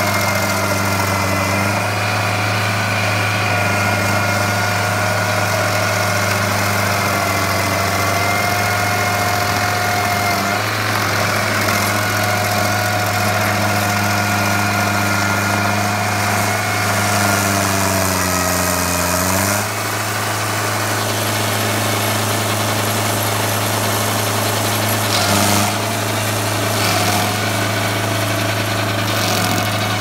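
A machine's engine running steadily at a constant speed. About two-thirds of the way in its pitch sags for a couple of seconds, then the sound shifts to a different steady note. Two brief knocks come near the end.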